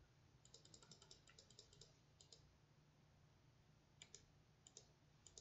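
Faint clicking of computer controls as the moves of a game record are stepped through: a quick run of about a dozen clicks in the first two seconds, then a few single clicks near the end, over near silence.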